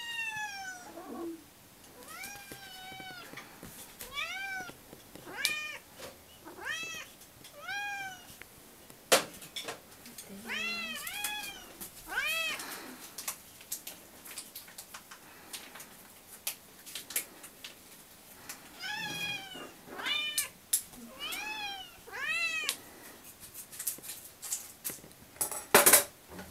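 Domestic cats meowing over and over for food, a long run of calls that each rise then fall in pitch, about one a second, with a quieter stretch in the middle. Sharp clicks and knocks come throughout, and the loudest burst is near the end.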